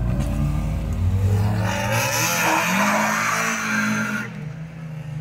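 Car engine revving hard, its pitch rising and falling, as the car slides, with tyres squealing and skidding on the tarmac for about two seconds in the middle; the sound drops off near the end.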